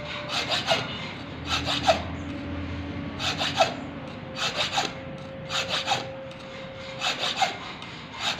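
A sickle's steel blade being filed by hand: rasping metal-on-metal strokes in quick groups of three or four, about one group a second, each group with a short metallic ring.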